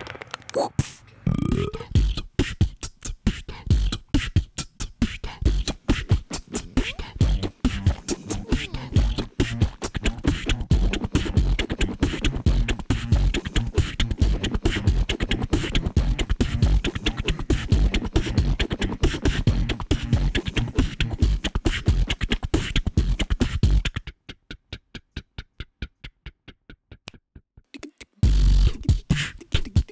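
Human beatboxing: a fast run of vocal kick-drum thumps, clicks and hisses. About 24 seconds in it drops to a faint, sparse pattern, and near the end it comes back loud.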